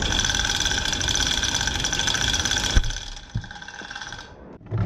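Manual chain hoist worked by its hand chain, giving a fast, steady chain rattle and whir as it lets down a heavy engine block. A sharp clunk nearly three seconds in ends the rattle, and quieter chain handling follows.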